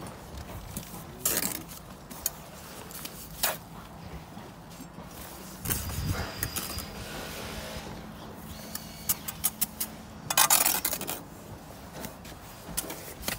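Steel bricklaying trowel spreading and cutting a mortar bed along a course of bricks: scattered scrapes and clinks of the blade on mortar and brick, with a longer, denser scraping stretch about ten seconds in.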